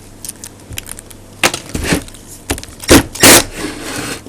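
Metal tools and rotator parts clinking and clattering on a workbench, with a few sharp loud clunks and short scrapes about halfway through.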